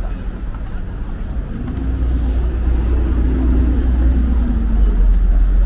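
Low engine rumble of a motor vehicle close by in the street, growing louder partway through and staying loud.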